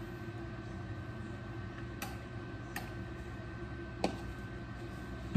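Four light clicks from a plastic cooking-oil bottle being handled and squeezed over a pot, against a steady low room hum and a faint steady high whine.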